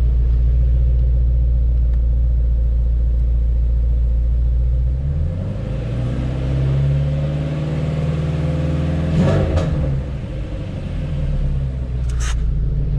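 Ford Mustang Shelby GT350's 5.2-litre flat-plane-crank Voodoo V8 running steadily at idle. About five seconds in its note shifts up a little and then holds. Two short clicks come later.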